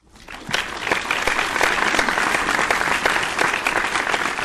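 Crowd applause, many hands clapping in a dense steady patter that fades in over about the first second.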